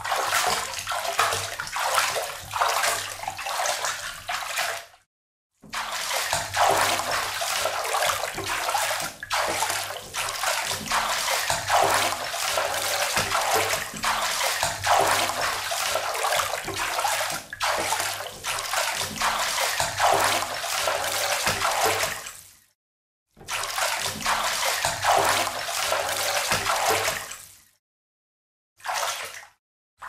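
Footsteps wading through shallow water, each step a splash, in a repeated walking rhythm. The splashing stops dead for brief silences three times.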